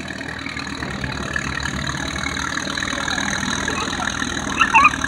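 Case LA tractor's four-cylinder engine running steadily under load, with an even low exhaust beat, as it pulls a weight-transfer sled. A brief louder, higher-pitched sound cuts in near the end.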